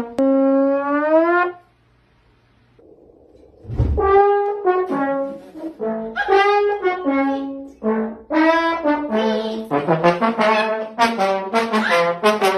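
Trumpet played as comic sound effects: a long note bending upward, then a pause broken by a low thud, then a run of short notes that quickens toward the end.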